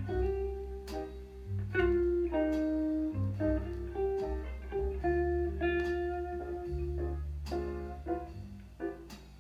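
Jazz record playing through a single-ended 2A3 tube amplifier and JBL speakers: single-note electric guitar lines over a bass line. It dips quieter near the end.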